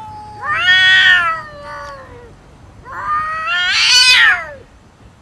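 Domestic cats yowling aggressively in a face-off over food: two long, wavering yowls a little over half a second apart, the second the brightest.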